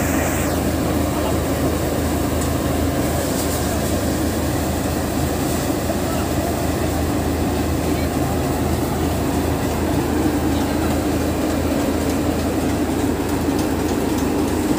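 Tractor-driven rice threshing machine running steadily while threshing paddy, a continuous loud mechanical drone with a low hum.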